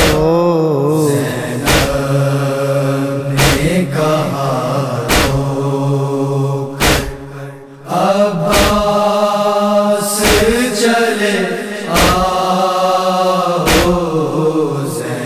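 Mournful noha chanting: a drawn-out, wavering melodic voice over a steady low drone. A sharp beat keeps time about every 1.7 seconds.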